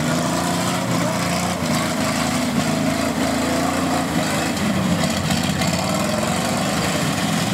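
Several demolition derby car engines running and revving together, their pitch wavering as the jammed cars push against one another in the mud.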